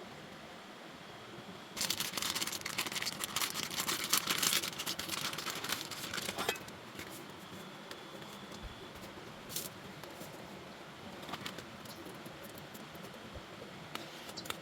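Dense crinkling and rustling for a few seconds, then a handful of scattered light clicks and ticks.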